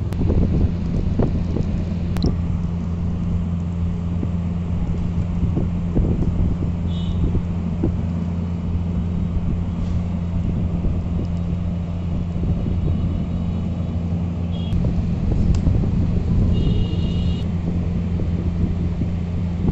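Mutton leg crackling as it roasts over the fire, over a steady low rumble with a constant hum. A few short high beeps are heard briefly, about 7, 15 and 17 seconds in.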